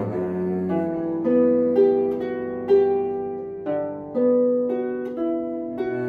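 Lever harp plucking a melody of single ringing notes, each note struck and left to decay, with a cello playing along underneath.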